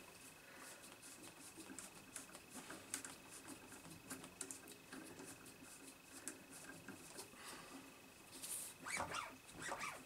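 Faint clicks and scratches of hands working the rear oil-filled shocks and suspension of a UFRC Growler GX1 RC buggy, with a few louder strokes near the end as the shocks are pushed down; the shocks have plenty of air inside them.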